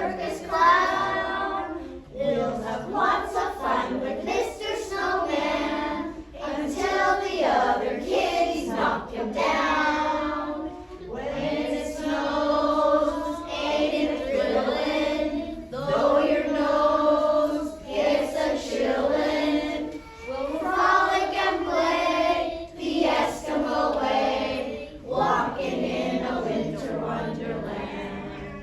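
A group of children singing a song together in phrases of a second or two.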